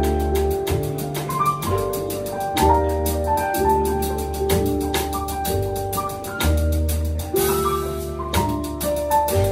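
Piano trio playing live: plucked upright double bass, a Yamaha digital piano and a drum kit played with sticks on the cymbals.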